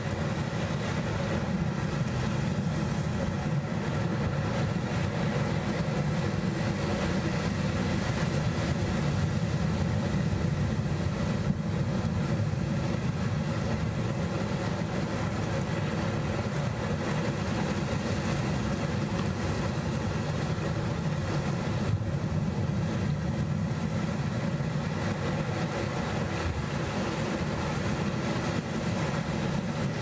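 Sea waves washing over and around the rocks of a rocky shore: a steady low rumble of surf with no distinct breaks.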